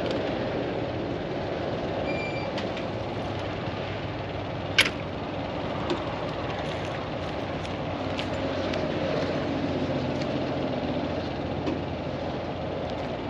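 Heavy diesel truck engine idling steadily, with one sharp click about five seconds in.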